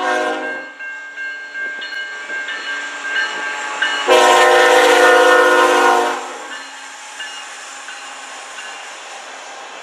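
Railway crossing bell ringing at a level crossing. A CN freight locomotive's horn sounds loudly for about two seconds near the middle, and then the train runs through the crossing.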